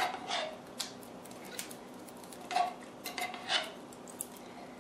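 Metal spoon scraping and clinking against the inside of a tin can of condensed cream of mushroom soup as the soup is spooned out into a glass bowl: a few irregular scrapes and clinks.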